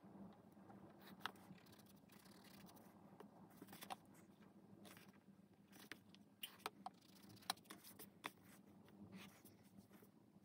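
Faint scratching of a pencil drawing lines along a plastic ruler on sketchbook paper, with several sharp light taps as the ruler and pencil are set down and moved.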